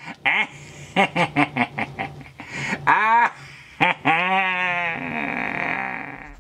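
A man's cackling laugh: a quick run of short 'ha' bursts, then long drawn-out laughs that bend and fall in pitch.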